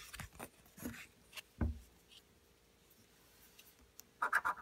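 Paper scratch-off lottery ticket being handled, with light rustles and taps and one soft thump about a second and a half in. Near the end a coin starts scraping the ticket's scratch-off coating in rapid strokes.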